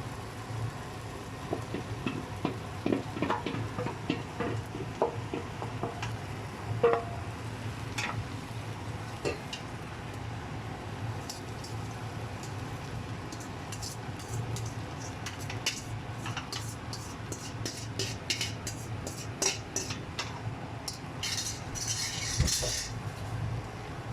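A metal utensil clinking and scraping against a cooking pot while biryani layers of rice, fried onion and mint are spread, with scattered knocks early on giving way to a run of quick, light clinks and a short scrape near the end, over a steady low hum.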